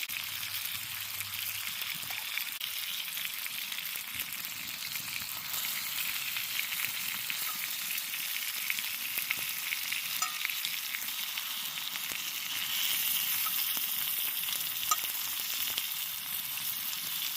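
Sliced potatoes frying in a pan, a steady sizzle with a few small pops.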